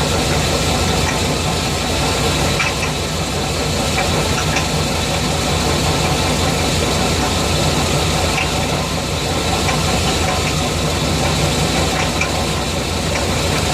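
Chevrolet 350 TBI small-block V8 running steadily with a rapid knock, heard close to the driver's-side front wheel; the owner wonders whether the flex plate is the cause.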